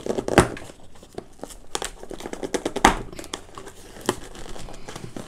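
A cardboard box being handled and opened by hand: scraping and rustling of the cardboard and packaging, with several sharp knocks, the loudest about half a second in and near the three-second mark.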